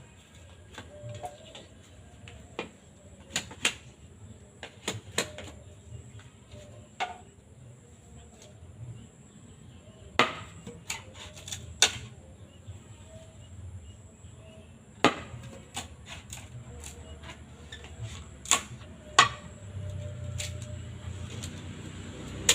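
Irregular sharp knocks and clicks of bamboo being worked by hand, about a dozen strikes spaced unevenly, the loudest about ten seconds in and near the end.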